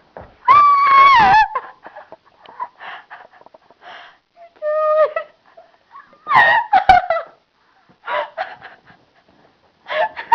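A man asleep snoring in high, whistling tones. The longest and loudest comes about half a second in and drops in pitch at its end, another comes around five seconds in, and a rougher burst follows around six to seven seconds, with short breathy sounds between.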